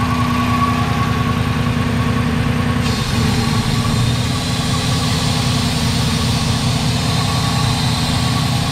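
2015 Dodge Challenger R/T Shaker's 5.7-litre HEMI V8 idling steadily, running smoothly on its first start after new coils and a new throttle body were fitted. About three seconds in, a higher hiss joins the idle.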